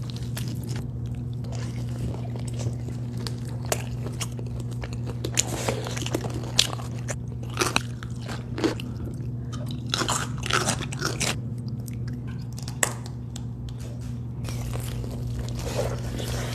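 Close-miked eating: crunchy bites and chewing in irregular clusters, over a steady low hum.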